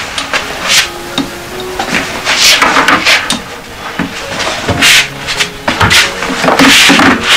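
Rummaging in a wooden wardrobe: things shifted and rustled on its shelves, with repeated knocks and rubbing against the wood, and the wardrobe door handled near the end.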